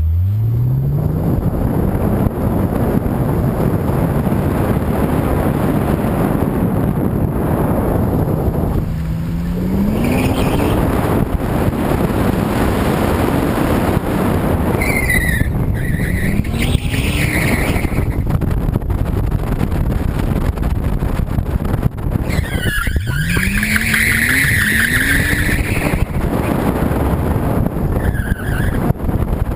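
1997 Nissan Skyline R33 GTS-t's turbocharged straight-six running under hard driving, its revs climbing several times, while the tyres squeal repeatedly as the car slides through the turns.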